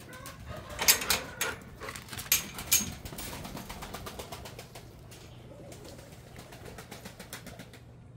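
Metal clanks and rattles from a chain-link kennel gate and its chain, a quick run of sharp clicks in the first three seconds, then scattered lighter clicks and rustling over a steady low hum.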